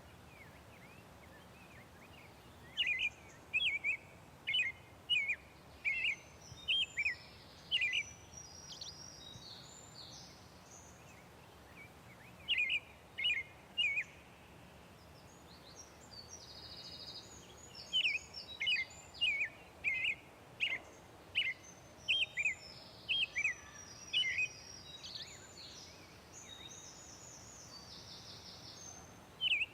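Garden birdsong: one bird gives phrases of short, sharp repeated chirps a few seconds long, separated by pauses, with fainter higher calls from other birds over a soft steady background hiss.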